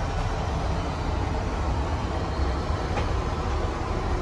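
Steady in-flight cabin noise of a Boeing 787-9 airliner: an even deep rumble with a hiss over it. A faint click comes about three seconds in.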